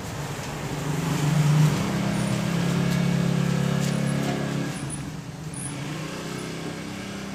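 A motorcycle engine running as it rides past. It grows loudest about a second and a half in, holds steady, then fades away after about four and a half seconds.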